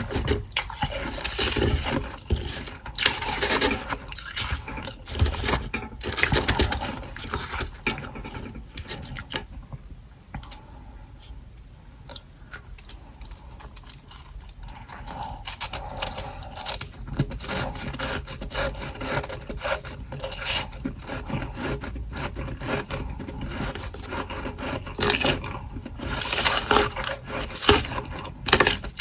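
Close-up crunching and scraping of soft, powdery humidifier frost from a freezer, in a dense crackle of small grainy clicks. It eases off for a few seconds about ten seconds in, then picks up again.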